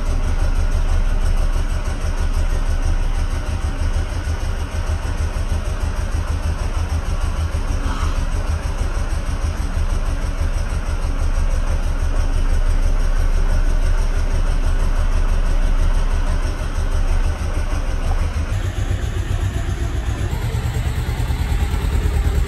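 Kawasaki Ninja 300's parallel-twin engine idling steadily while still cold, shortly after a cold start.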